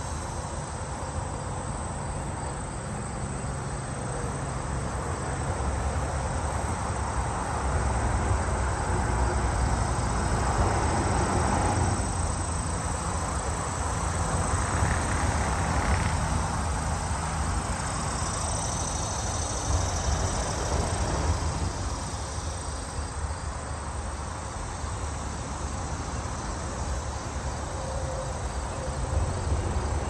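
Insects chirring in a steady high trill, over a low rumble of traffic that swells and fades twice in the middle, as vehicles pass.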